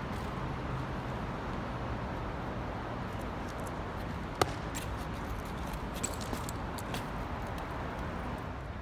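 Steady city traffic hum and outdoor ambience, with one sharp click a little under halfway through and a few fainter ticks after it from the BMX rider and bike during a flatland trick.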